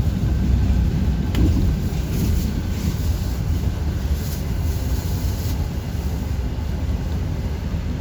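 City bus under way, heard from inside: a steady low engine and road rumble, with a sharp click about a second and a half in.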